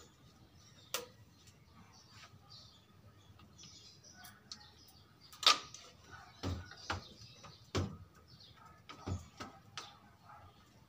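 Scattered knocks and clicks from a small automatic voltage regulator being handled and set down on a slatted wooden bench: a sharp knock about five and a half seconds in, then several duller thumps.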